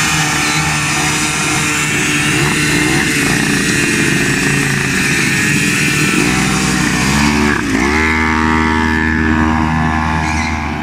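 Puch moped two-stroke engines running, the pitch dipping and climbing again a couple of times in the second half as the throttle is worked.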